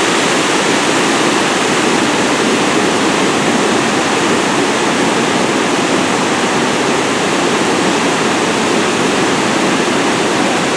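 Loud steady rush of river water pouring through Kallanai Dam on the Kaveri, a continuous roar with no breaks.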